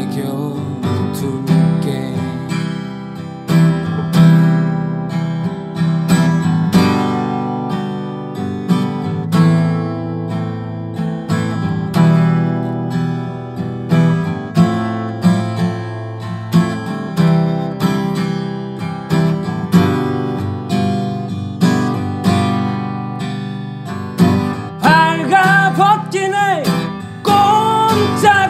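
Instrumental break in a song, with acoustic guitar chords played steadily, about one stroke a second. A singing voice comes back in near the end.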